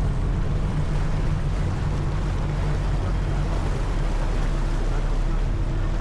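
Passenger ferry's engines running with a steady low hum, mixed with the rush of water along the hull as the boat moves.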